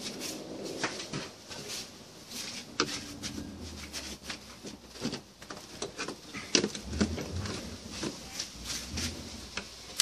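Plastic air filter housing and rubber intake duct being worked loose by hand: irregular clicks, scrapes and light knocks of plastic and rubber.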